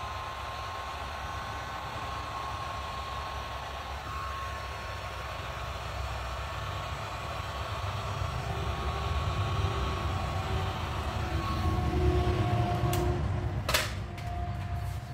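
Handheld electric heat gun running steadily, its fan whining, as hot air is blown over freshly poured epoxy resin to bring up cells and lacing. It grows louder and heavier partway through and cuts off near the end with a couple of clicks.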